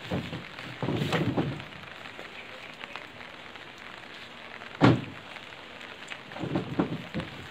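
Pieces of firewood being dropped into a pickup truck's bed, knocking and clattering: a cluster about a second in, one sharp loud thud about five seconds in, and a few more near the end. Steady rain runs underneath.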